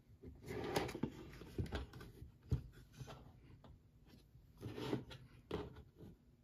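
Faint handling noises: soft rubs and a few light taps as hands slide a Raspberry Pi 500 keyboard into place on a tabletop and set a small plastic microSD card case down beside it.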